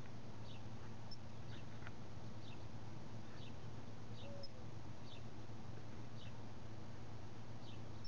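A small bird chirping at a seed feeder: short, high, falling chip notes about once a second. Two sharp clicks stand out, about a second in and again near the middle, over a low steady hum.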